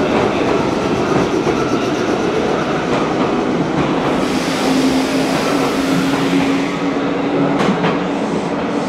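Meitetsu electric train running through an underground station platform, a dense steady rumble of wheels and motors. A hiss and a steady low hum come in about halfway, and a couple of sharp clicks follow near the end.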